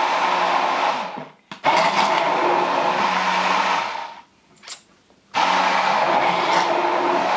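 Hand-held immersion blender motor running in a tall cup of chocolate smoothie, switched off about a second in, given a short burst, run again for about two seconds, stopped for about a second, then started again.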